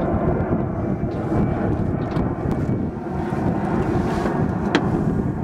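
Steady low rumble of a boat under way, with wind buffeting the microphone, and one brief click about five seconds in.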